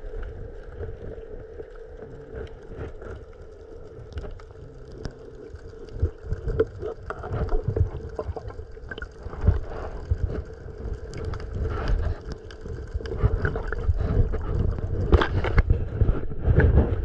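Irregular sloshing and splashing of feet wading through shallow seawater, growing busier and louder near the end. A steady hum runs underneath.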